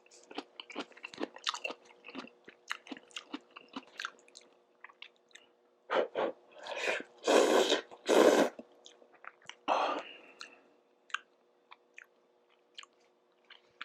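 Close-miked eating of instant ramen noodles: soft chewing and wet mouth clicks, with four louder noisy bursts near the middle that sound like noodles being slurped.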